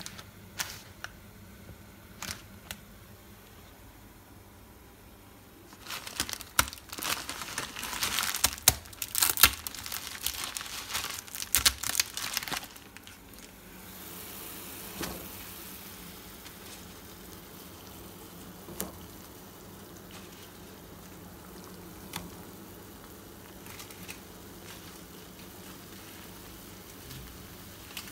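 Plastic instant-noodle packet crinkling and tearing open for several seconds, then a steady hiss from the pot of water with the noodle block in it, on the gas stove.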